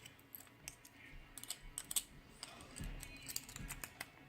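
Faint, irregular small metallic clicks and taps of a round-body padlock and its key being handled during disassembly.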